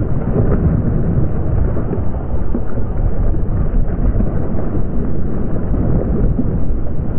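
Loud, uneven low rumble of wind buffeting a phone microphone on open water, with water splashing under it.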